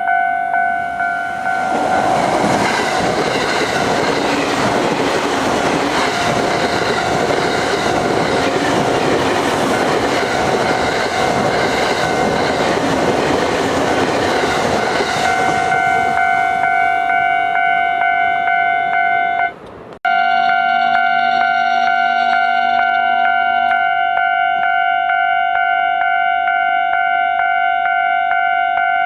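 Japanese level-crossing alarm ringing steadily, about two strikes a second, while a train passes for some thirteen seconds and its rushing noise drowns the bell. The bell keeps ringing after the train has gone, with a brief break about twenty seconds in.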